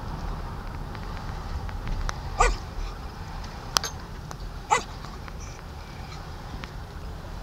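A dog gives two short yipping barks a couple of seconds apart, over the steady low rumble of a slow-moving car. A single sharp click falls between the barks.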